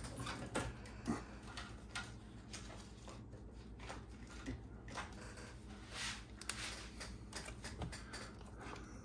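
Scattered light clicks and taps of hands handling small parts and a pen while working on an RC truck's chassis and motor, over a steady low hum.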